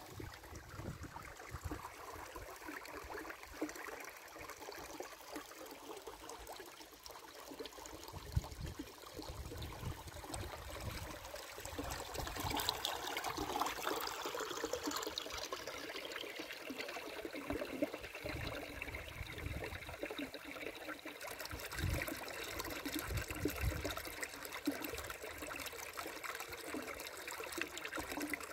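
Shallow stream trickling and babbling over stones, a steady rippling water sound, a little fuller from about halfway through.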